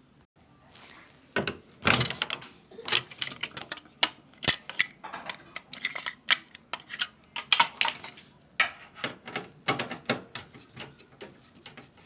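Quick, irregular sharp clicks and taps of a screwdriver working at the plastic frame of an LG washing machine's front door, several a second, starting about a second in.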